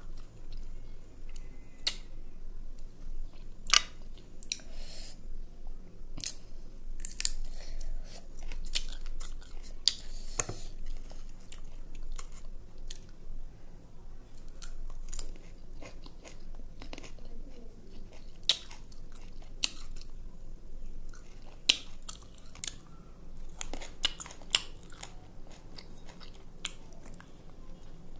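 A person biting into and chewing crisp jujube fruits: irregular sharp crunches scattered among chewing sounds.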